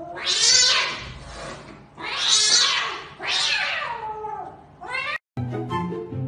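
A cornered cat hissing and yowling: three long, loud hisses with a wavering cry under them, then a shorter one. After a cut near the end, background music starts.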